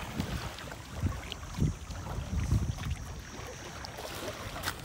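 Wind rumbling on the microphone in gusts, with water splashing from a kayak paddle stroke near the end.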